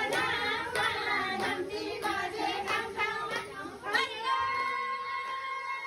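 A group of voices singing a devotional song, with hands clapping in time about twice a second. About four seconds in the singing gives way to one long steady held tone.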